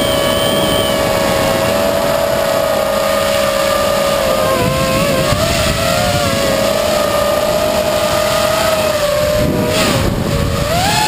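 Brushless electric motors and propellers of a small RC aircraft, heard from its onboard camera: a steady high whine that wavers in pitch as the throttle changes, dips briefly near the end and then rises sharply as the throttle is pushed up, over wind rushing past the microphone.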